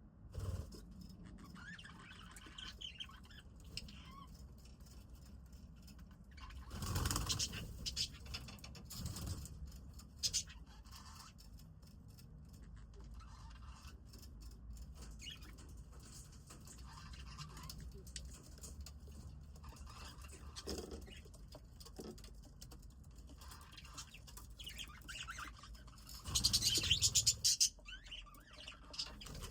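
Budgies chirping and chattering in short scattered calls, with two louder, noisier bursts, one about seven seconds in and one near the end.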